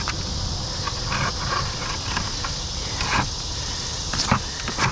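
Scrub brush scraping rust and muck off a rusty pipe stuck to a magnet-fishing magnet, in several short separate strokes, over a steady high insect drone.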